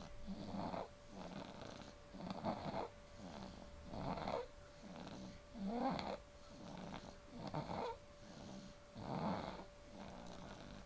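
Six-month-old baby snoring in sleep, a rough snore on each breath in an even rhythm, with a louder one roughly every second and a half to two seconds.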